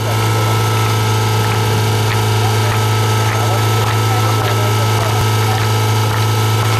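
Portable fire pump engine idling steadily with an even, unbroken hum.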